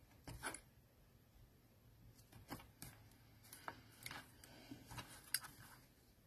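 Small scissors snipping around a watercolour-paper leaf cut-out: faint, irregular snips and small clicks.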